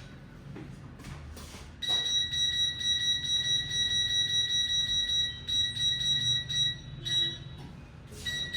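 A steady high-pitched buzzer-like tone starts about two seconds in, holds for about five seconds with a slight waver in loudness, then stops. A few short clatters follow near the end.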